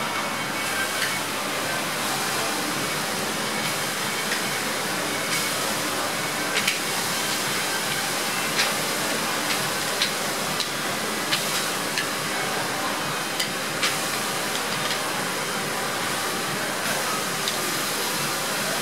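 Racks of ribs sizzling over a wood fire on a round grill: a steady hiss with scattered sharp pops and crackles from the fat and burning wood.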